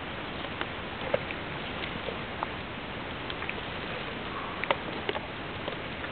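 Baby rhino eating noisily: irregular crunching clicks of chewing over a steady background hiss.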